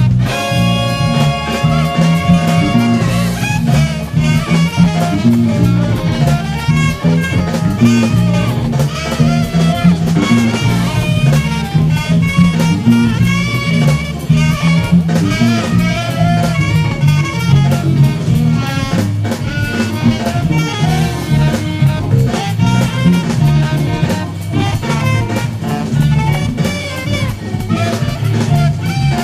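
Funk band music with saxophone and horns over a drum kit, a held horn chord near the start, and a prominent electric bass line played along with it.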